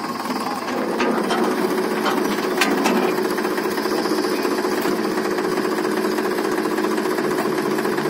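A diesel tractor engine idling close by, running steadily, louder from about a second in.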